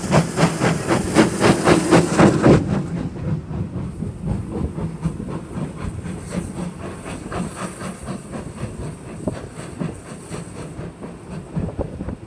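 Caledonian Railway 0-6-0 steam locomotive No. 828 working hard, its exhaust beats sharp and even at about five a second. About two and a half seconds in, the engine passes below and the beats drop away to a quieter rumble of the coaches rolling by, with fainter beats and wheel clatter.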